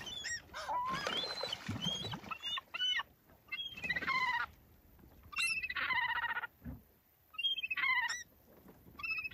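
A flock of gulls calling. Thin squeals glide up and down for the first few seconds, then come bursts of rapid repeated calls about every one and a half seconds.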